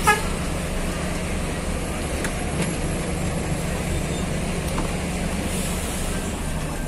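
Intercity bus engine idling with a steady low hum. A short loud sound comes right at the start, and a few faint clicks follow.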